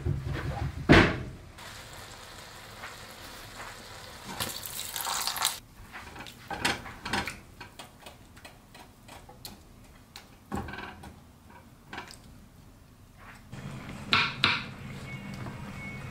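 Kitchen work sounds: scattered knocks and clatters of a spatula and cookware on a skillet and stovetop, with a brief rush of water about four seconds in. A low steady hum comes in near the end.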